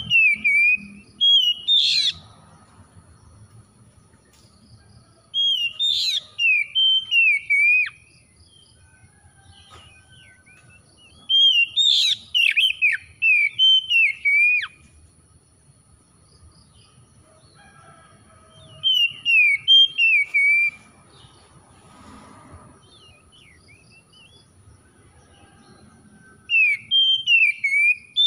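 Oriental magpie-robin singing in loud whistled phrases of gliding notes, each two to three seconds long, coming about every six seconds, five in all. A faint steady high whine runs underneath.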